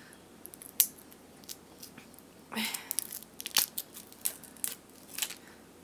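Scattered sharp clicks and a brief rustle, about two and a half seconds in, from a plastic snack wrapper being opened and handled.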